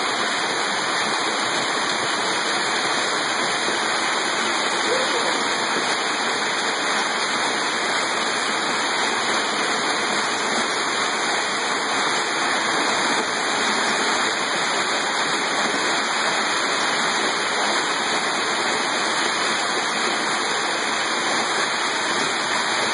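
Hailstorm: hail and rain pelting down hard, a dense steady hiss that does not let up.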